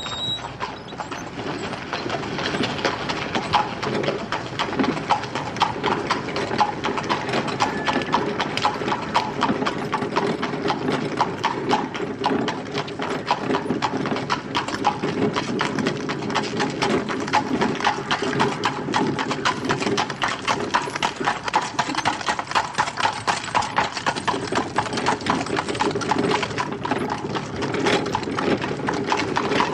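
A horse's hooves clip-clopping steadily on a street as it pulls a wagon, with the wagon's wheels rolling underneath the hoofbeats.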